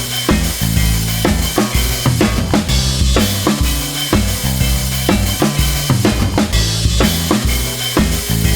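Background music with a steady drum-kit beat and a heavy bass line.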